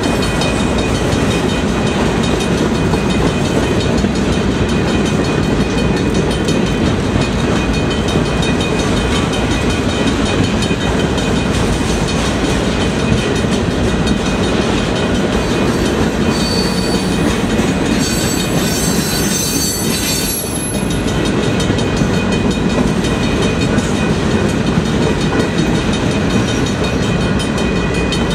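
Freight cars of a CN train rolling past: a steady rumble and clatter of steel wheels on the rails. A higher wheel squeal joins in for a few seconds about two-thirds of the way through.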